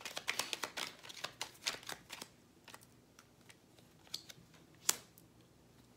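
A deck of tarot cards being shuffled by hand: a dense run of quick papery clicks for about two seconds, then a few scattered taps and one sharper click near the end.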